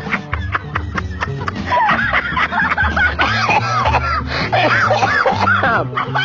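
People laughing loudly in high-pitched bursts over background music with a steady bass line.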